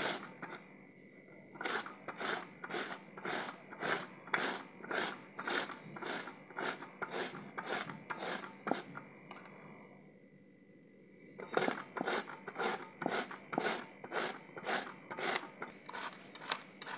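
Bottle gourd being grated by hand on a flat metal grater, rasping strokes about two a second. The strokes pause briefly about a second in and again for about two seconds near the middle.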